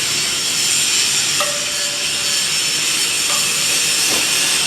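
Steady hissing noise of welding work in a school welding shop, running evenly without a break.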